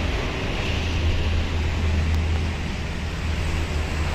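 RC model Cessna 182 airplane flying low past, its motor a steady drone over a low rumble.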